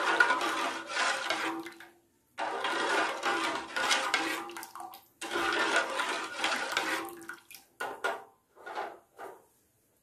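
Sugar syrup sloshing and swishing as a metal slotted spoon stirs it round an aluminium pot, in three long stretches broken by brief silences, then a few short strokes near the end.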